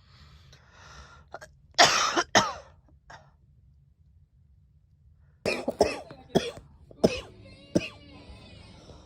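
A girl coughing: two hard coughs about two seconds in and a weaker one just after, then, after a short pause, a run of short coughs.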